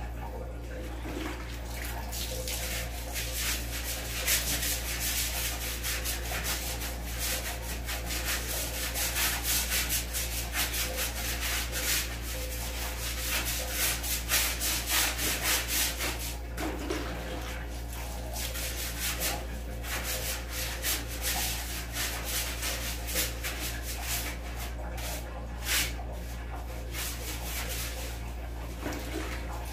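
A toilet being scrubbed by hand: runs of quick rubbing strokes with brief pauses, over a steady low hum.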